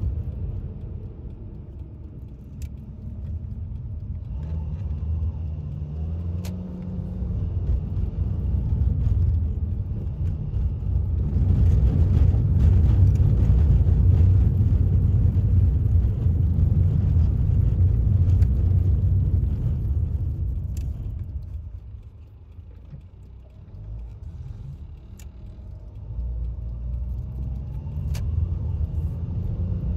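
Road noise inside a moving car: a low tyre and engine rumble that swells louder about a third of the way in and eases off about two-thirds of the way through, with a few faint clicks.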